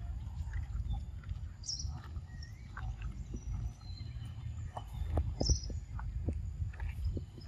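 A long-tailed macaque eating soft fruit close to the microphone: a run of wet smacking clicks from its chewing and biting, thickest in the second half, over a steady low rumble. A couple of short, high bird chirps come in around two and five seconds in.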